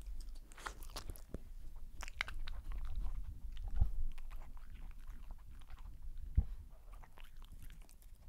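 A dog chewing and biting food close to a sensitive microphone: irregular crunching and clicking, with a couple of louder knocks about four and six and a half seconds in.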